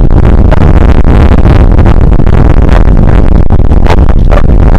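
Loud wind buffeting the microphone, a heavy low rumble with crackling gusts that drives the recording close to full level.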